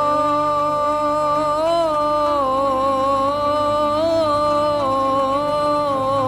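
Classical Arabic song music: a slow melody of long held notes with ornamented turns, over a steady low bass line.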